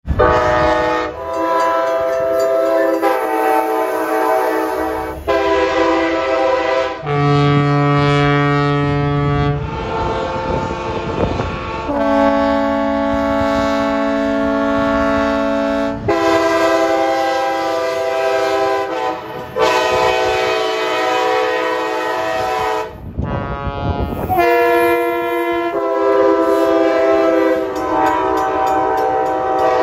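Train horns sounding one after another in short spliced clips, each a held multi-note chord that cuts off abruptly. A couple of deeper horns come in among them.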